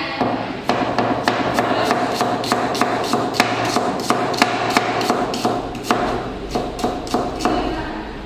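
Chef's knife chopping a red onion on a plastic cutting board, the blade knocking the board in a quick, even rhythm of about four chops a second that stops shortly before the end.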